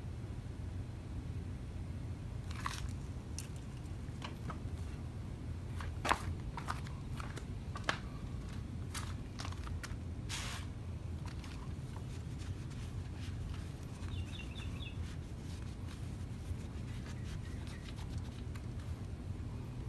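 Scattered knocks and clatter as the lawn edger is handled and set back upright on its wheels, the loudest knock about six seconds in, over a steady low outdoor rumble. A brief faint chirping comes a little past the middle.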